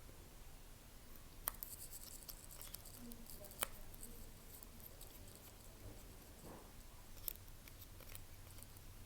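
Faint handling of small repair tools and phone parts: a few sharp clicks with light scratching between them.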